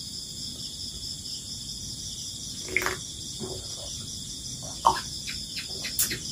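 Steady chirring chorus of crickets and other insects. Over it come a few brief soft sounds from sipping and swallowing a drink from a glass, the sharpest about five seconds in.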